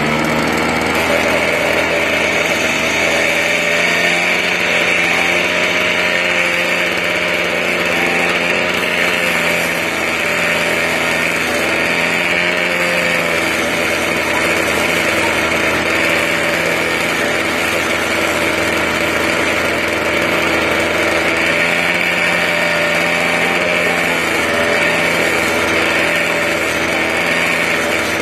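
Small two-stroke brushcutter engine running steadily, driving a sanding disc fitted in a drill chuck on its output shaft.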